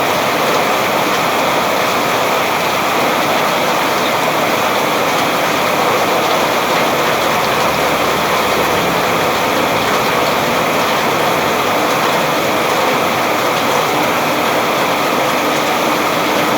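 Heavy rain falling steadily, an even rushing hiss with no let-up.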